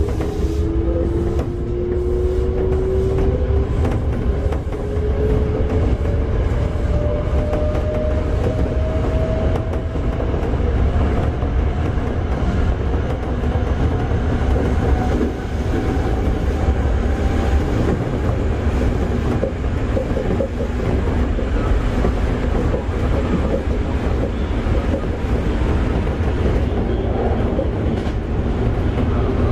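Toei 5300 series train running on its Mitsubishi GTO-VVVF traction system, heard from inside the car: the inverter and motor whine climbs steadily in pitch over roughly the first half as the train picks up speed, then gives way to a steady rumble of wheels on rail at speed.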